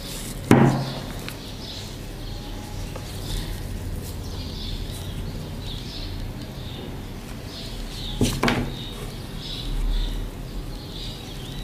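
Two sharp knocks about eight seconds apart as a mini hot glue gun and the ornament are handled on the table, with quiet handling noise between. A faint high chirping runs in the background.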